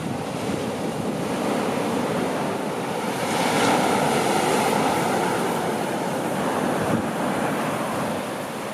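Surf breaking on the shore with wind buffeting the microphone, swelling louder about three seconds in.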